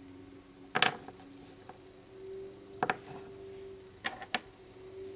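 A few small clicks and taps as polymer clay charms are handled and set down on a tabletop, the loudest about a second in, over a faint steady hum.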